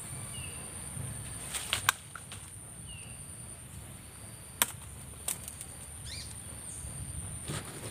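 A green papaya being twisted off its stalk by hand and set in a wicker basket: a few sharp snaps and knocks. Under them a steady high insect drone and a few short bird chirps.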